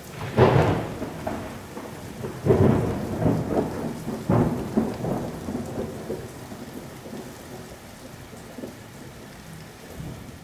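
Thunderstorm sound effect: steady rain with three loud rolls of thunder in the first half, the first about half a second in, the storm then fading away toward the end.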